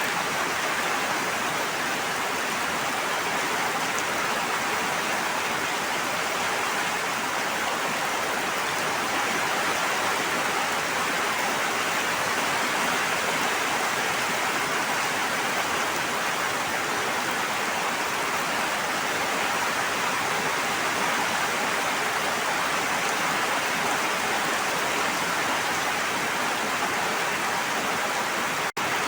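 Steady rushing water, a dense even hiss of rain or falling water, with a momentary dip in level near the end.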